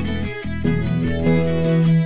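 Background music led by a fiddle, with a low note held through the second half.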